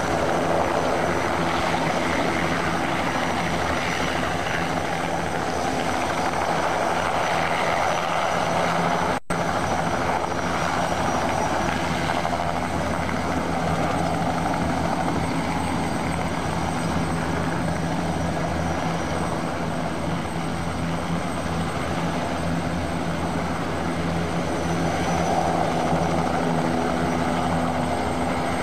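Bell 206B JetRanger helicopter hovering and manoeuvring low: the steady sound of its turbine engine and two-blade rotor, with a brief dropout about a third of the way in.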